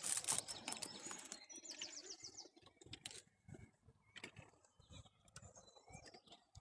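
Rustling and clicks of close handling at the start, then a small songbird's fast high trill about two seconds in, followed by scattered faint chirps and clicks.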